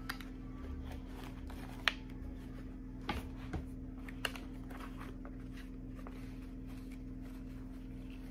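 Handling noise from a replacement car shifter boot being worked by hand: soft rustling and a few light clicks, the sharpest about two seconds in, over a steady low hum.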